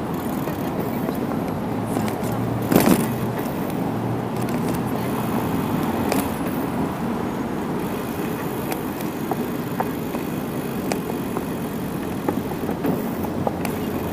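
Steady city road traffic noise, with one brief louder rush about three seconds in and a few faint clicks.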